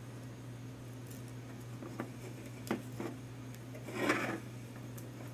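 A nylon zip tie being pulled tight through a hexacopter's frame plate: a couple of small clicks, then a short ratcheting rasp about four seconds in. A steady low hum runs underneath.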